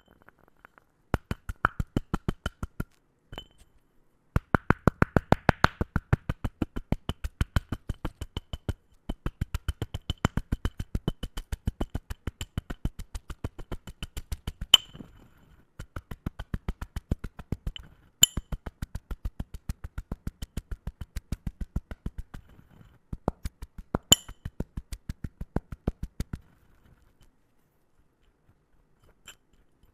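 Chalk balls being crushed, making runs of rapid crisp crunching clicks, about five a second, broken by short pauses. A few single sharper, louder snaps stand out over the runs.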